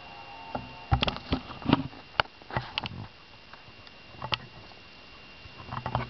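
Irregular knocks, taps and rustles of handling, loudest between about one and three seconds in, with a few more near the end. In the first second the tail of the MacBook's startup chime fades out.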